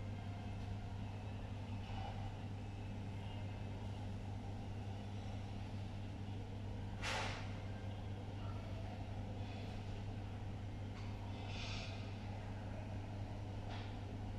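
A steady low hum over background noise, with a short breathy hiss about halfway through and a few faint clicks.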